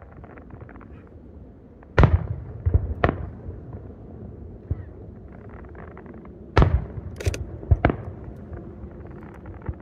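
Aerial firework shells bursting in a series of sharp booms. The loudest come about two seconds in and again about halfway through, each followed within a second or so by smaller reports.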